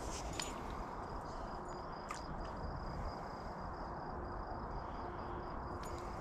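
Outdoor ambience: a steady low rumble of wind on the microphone, with a thin steady high tone starting about a second and a half in and a few faint clicks.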